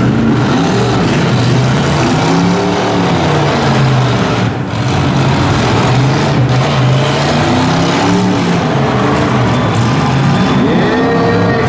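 V8 demolition-derby car engines revving hard, the pitch climbing and falling again and again, as two cars shove against each other with their wheels spinning.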